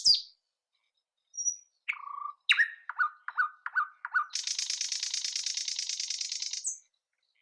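Nightingale singing: a short high note, a lower held whistle, then a run of about five quick repeated notes, and finally a fast, high rattling trill of about two seconds that stops abruptly.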